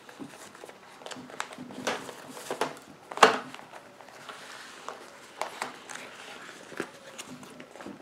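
Cloth roll of a Swiss rifle cleaning kit being untied and unrolled by hand: rustling cloth and ties with scattered light knocks and clicks from the tools inside, the loudest knock about three seconds in.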